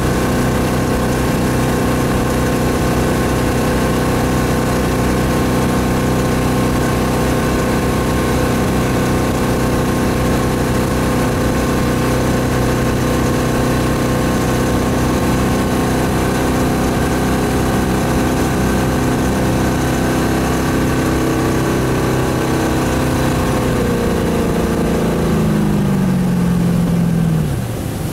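Ski tow boat's engine running steadily at high speed while pulling a barefoot skier, its note holding even over a rushing noise. About 24 seconds in, the engine note falls as the boat slows.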